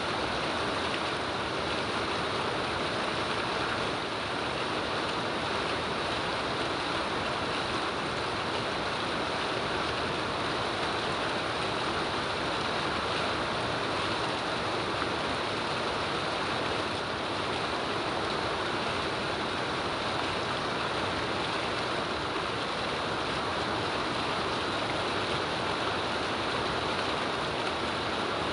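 Steady rain falling, an even unbroken hiss with no single drops, gusts or thunder standing out.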